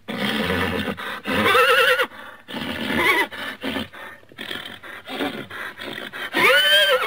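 A horse whinnying: a quavering whinny about a second and a half in, shorter, softer calls after it, and a loud whinny near the end that rises and then falls in pitch.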